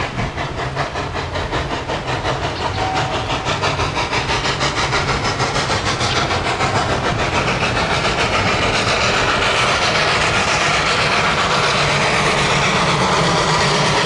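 Steam locomotive working hard under heavy smoke, its exhaust chuffing in an even rapid beat that grows louder as the engine draws near.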